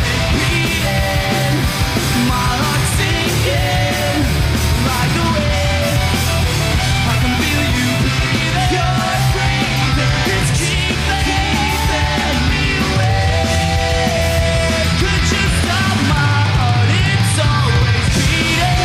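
Pop-punk band playing at full volume: distorted electric guitars, bass and driving drums, with a lead vocal sung over them.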